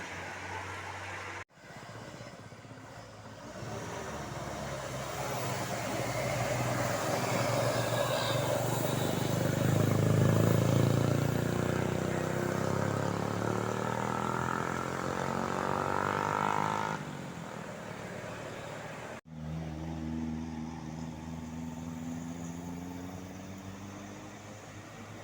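Diesel engine of a large road vehicle, most likely a tour bus, passing close by. It grows louder to a peak about ten seconds in, then fades. The sound cuts off abruptly twice.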